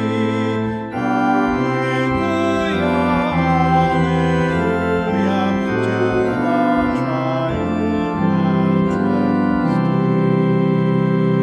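Church organ playing the last line of a hymn in sustained, changing chords, then settling on a long held final chord about ten seconds in.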